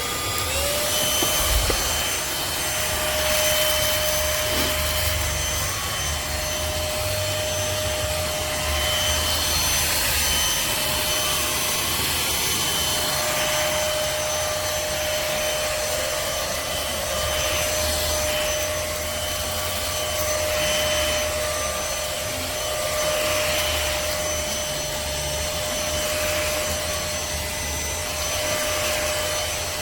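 Trucozie cordless stick vacuum running steadily with a high motor whine over rushing airflow, the whine rising to pitch as the motor comes up to speed at the start. The sound swells and eases every few seconds.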